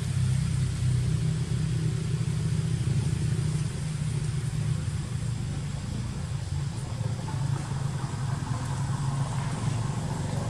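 Steady low engine rumble, like a motor vehicle running nearby, with no clear changes.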